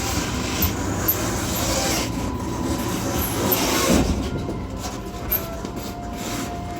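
Running noise at the gangway between two coaches of a moving passenger train on a rough stretch of track: wheels rumbling on the rails and the connection rattling, with a few sharp knocks. The loudest surge comes about four seconds in.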